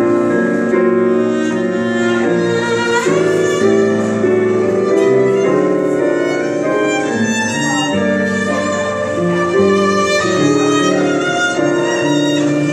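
Jazz violin playing a slow ballad melody over piano accompaniment, with a sliding rise into a higher note about three seconds in.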